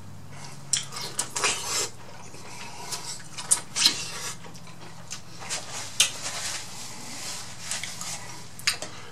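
Close-miked eating of broth-soaked corn on the cob: a string of wet bites, crunches and mouth clicks. The louder ones come about a second in, near four seconds and at six seconds, over a faint steady low hum.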